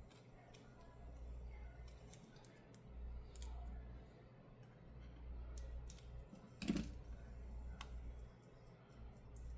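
Scattered light clicks and taps of small tools and fingers working on tablet parts, with one louder knock about seven seconds in.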